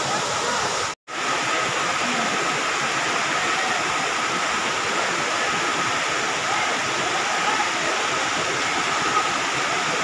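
Steady rush of a waterfall and its stream tumbling over rocks, cutting out completely for a moment about a second in.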